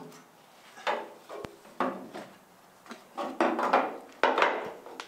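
Short metallic clanks and knocks of tools and fittings being handled at the base of a stainless-steel pulpit rail on a steel boat, about five separate knocks with brief ringing, busiest in the second half.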